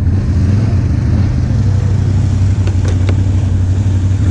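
ATV engine running steadily, a constant low hum, with a couple of light clicks about three seconds in.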